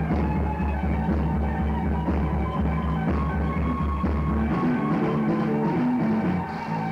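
Rock band rehearsal played back from cassette tape: electric guitar, bass and drums playing together. A low bass note repeats steadily and stops about two-thirds of the way through, where the bass line starts to move.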